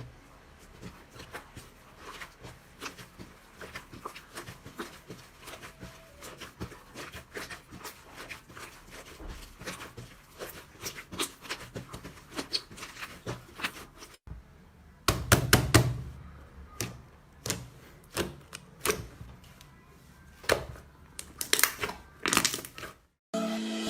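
Close-miked crackling and clicking from a crunchy material being handled: a dense run of small sharp pops, then after a brief break about fourteen seconds in, louder and sparser cracks and pops.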